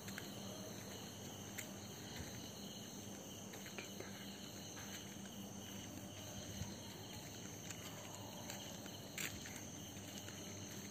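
Faint, steady chirring of crickets, with a few soft ticks.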